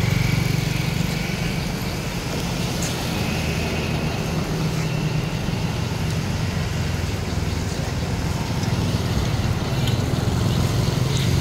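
Steady low rumble of outdoor background noise, like road traffic or a running engine, with no clear sound from the monkeys.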